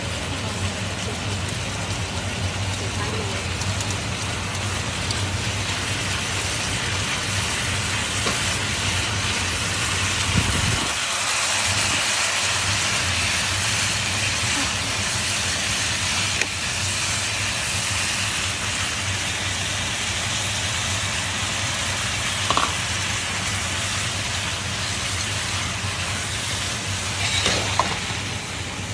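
Wild boar meat and asparagus sizzling in a hot wok while being stir-fried, a steady hiss, with a couple of clicks of chopsticks against the pan near the end.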